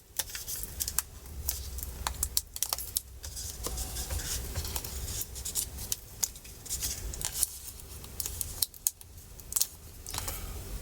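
Small sharp clicks, taps and scratchy scraping from hands and a tool working on the internal parts of an opened MacBook Pro, peeling up a tab. A low hum runs underneath.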